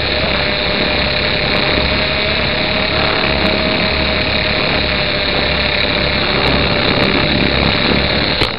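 Small electric RC helicopter running in flight, heard from on board: a steady motor whine over the rush of the rotors. Near the end there are a couple of sharp knocks and the sound drops away.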